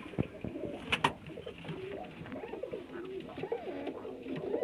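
Several domestic pigeons cooing, with low rolling coos overlapping one another. A single sharp click comes about a second in.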